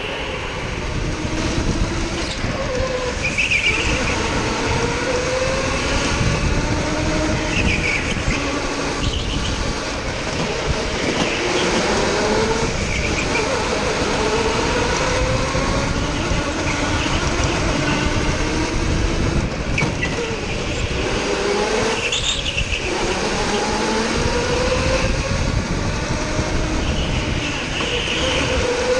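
Racing go-kart engines under way, their pitch rising as they accelerate and dropping as they back off, again and again every couple of seconds.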